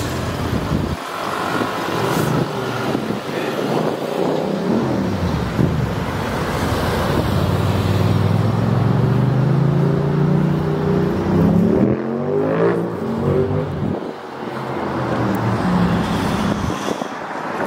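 Road traffic close by, with one vehicle's engine speeding up, its note rising steadily over several seconds midway through before it fades.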